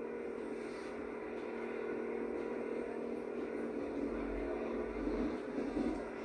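Steady vehicle-like engine drone from a cycling race's TV broadcast, played through a television's speaker, which gives it a thin, boxy sound.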